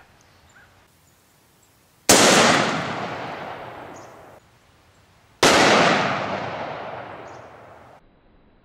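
Two rifle shots from an AR-15 carbine with a 16-inch barrel, firing 5.56mm NATO XM193 55-grain full metal jacket, about three seconds apart. Each one cracks sharply and rings out for about two seconds before cutting off.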